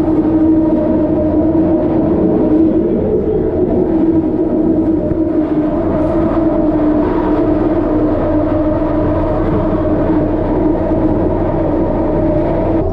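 Interior of a Detroit People Mover car, an automated train driven by a linear induction motor, running along its elevated guideway: a steady rumble of rolling noise with a held hum.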